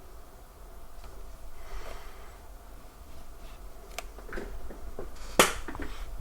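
A few sharp clicks and light knocks, the loudest about five and a half seconds in, over a faint steady background.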